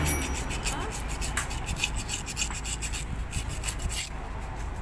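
Steel brush scrubbing metal bicycle freehub parts: a fast run of scratchy back-and-forth strokes with a couple of brief pauses.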